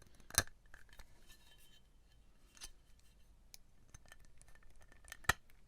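Small metal parts of a disassembled hard drive clicking and clinking as they are handled: two sharp clicks, about half a second in and near the end, with light ticks and scrapes between them.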